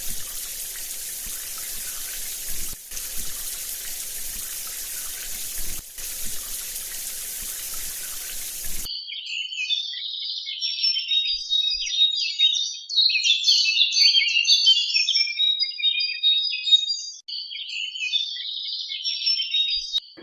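Running water hissing steadily for about nine seconds, then cutting off abruptly to a busy chorus of birds chirping and twittering.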